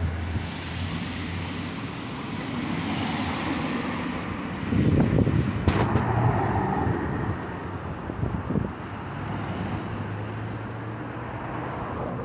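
Car traffic: a car engine running with a steady low hum. It grows louder for a couple of seconds about five seconds in, as a vehicle moves close by.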